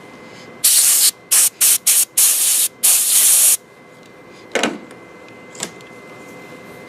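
Compressed air from a dental unit hissing in about six short bursts, blown at the cavity preparation to clear cutting debris. Two faint taps follow later.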